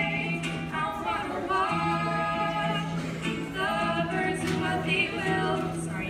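Female voices singing a song live over ukulele accompaniment, with long held notes that bend between pitches.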